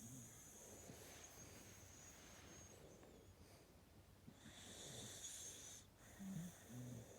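Dog snoring faintly in deep sleep, one slow breath after another, with two short low-pitched sounds near the end.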